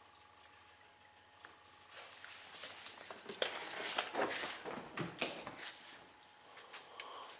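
Two Coton de Tulear dogs scampering and scrabbling, a dense flurry of clicks, scuffles and rustling for about three seconds in the middle, then dying down.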